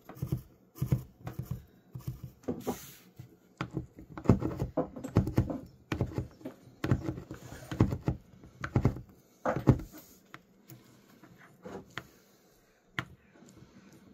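Steel gears of a BMW S1000RR motorcycle gearbox clicking and clunking irregularly as they are slid along their shafts and turned by hand, with fewer clicks near the end.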